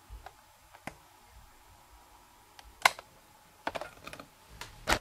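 A few irregular sharp clicks and knocks in a quiet room: a loud one about three seconds in, a quick cluster a second later, and another loud one near the end.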